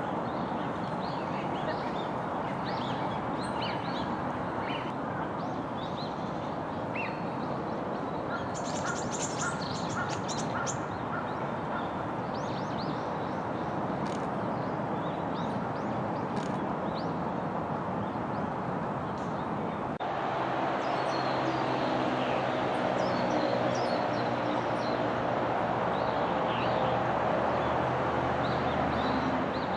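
Wild birds giving many short, high chirps and calls over a steady rushing background. About two-thirds of the way through the background changes abruptly and a low steady hum joins it.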